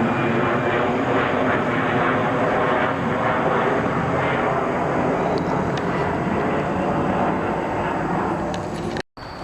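Passenger jet's engines running loud and steady, easing slightly near the end, then cut off abruptly about nine seconds in.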